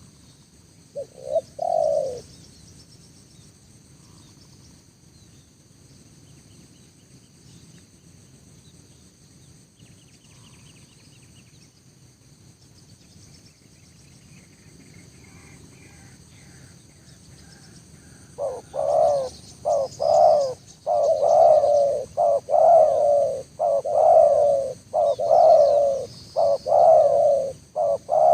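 Spotted dove cooing: a short call about a second in, then, from about two-thirds of the way through, a run of about a dozen repeated coos, each bending down in pitch. A faint steady high-pitched drone sits underneath.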